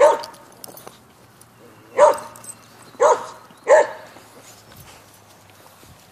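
A dog barking: four short barks, one right at the start and three more between about two and four seconds in.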